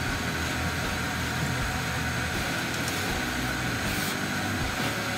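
Shop vacuum running steadily, its hose sucking debris off an engine block.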